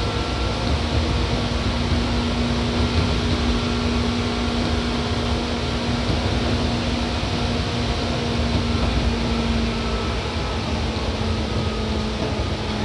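Seibu 2000 series commuter train running at steady speed, heard from inside the car: steady rolling and underfloor noise with a constant low hum.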